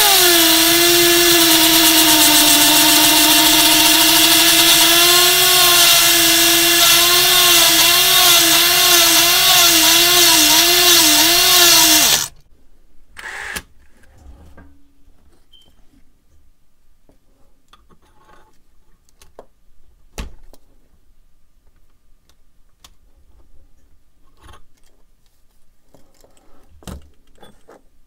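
Rotary tool with a grinding-stone bit grinding a notch into steel, a high steady whine whose pitch dips and wobbles repeatedly as the bit bears on the metal. It stops abruptly about twelve seconds in, gives one brief burst a second later, and then there are only faint clicks and handling of the part.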